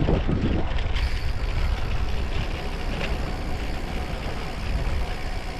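Wind rushing over an action camera's microphone while riding: a steady low rumble and hiss of moving air and road noise.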